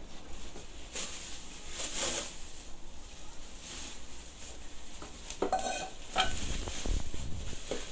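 Bubble wrap crinkling and rustling as aluminum pots and pans are unwrapped, with a couple of light metallic clinks from the cookware about two-thirds of the way through.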